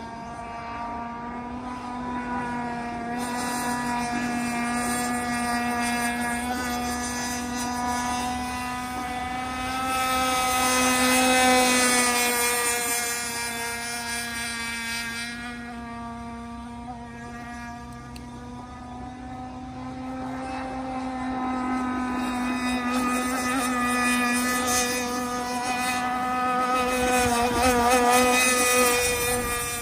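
Radio-controlled monohull race boat running at full speed, its motor giving a steady, high-pitched hum. The sound grows louder as the boat comes close, about ten seconds in and again near the end.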